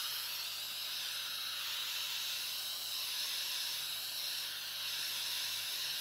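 Handheld heat embossing tool running steadily, an even blowing hiss with a faint low motor hum, as it blows hot air over wet acrylic paint to pop surface bubbles.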